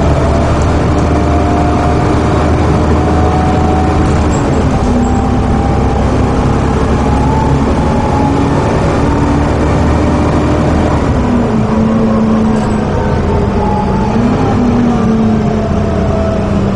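Volvo B7TL double-decker bus's engine and drivetrain running under way, heard inside from the upper deck as a steady low rumble. The engine note climbs slowly, then steps down twice, about four and a half and eleven and a half seconds in, as the automatic gearbox changes gear.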